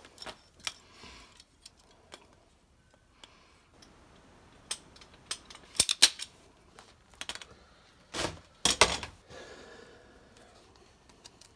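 Hand-squeezed plastic tubing cutter with a red handle working on clear vinyl hose: a series of sharp clicks from the jaw and blade, loudest around five to six seconds in, then two louder short snips around eight and nine seconds.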